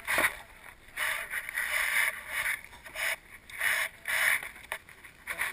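Repeated bursts of rushing noise, about one a second, from a handheld action camera's microphone being rubbed and buffeted by air.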